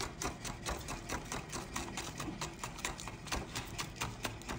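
Chef's knife chopping green onions on a bamboo cutting board: quick, even knocks of the blade striking the wood, about six a second.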